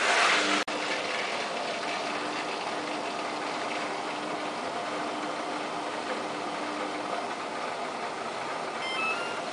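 Samsung WF8804RPA washing machine in its main wash, the drum turning slowly at about 50 rpm, with steady washing and motor noise. A few short high tones sound near the end.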